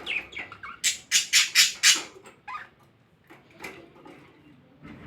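Pet budgerigars chirping, with a run of about five loud, harsh squawks about a second in, then a few softer chirps.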